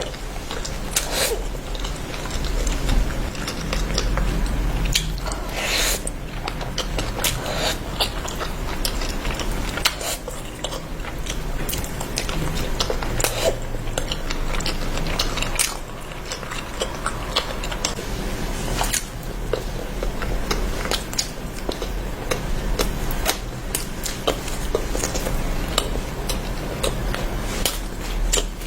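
A person biting and chewing a chicken and rice meal close to the microphone: many short wet clicks and smacks, scattered irregularly, over a low steady hum.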